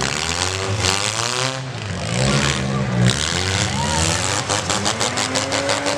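Demolition derby car engines revving up and down, with pitch rising and falling, over crowd voices. A fast, even pulsing joins about four and a half seconds in.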